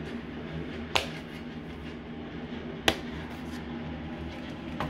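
Two sharp clicks, about a second and about three seconds in, from handling a plastic DVD box set, over a steady low hum.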